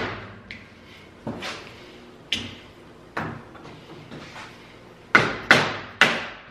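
Collapsible steering shaft stood on a wooden block being knocked down to collapse it, metal struck from above in sharp knocks. A few lighter knocks about a second apart, then three louder blows in quick succession about five seconds in.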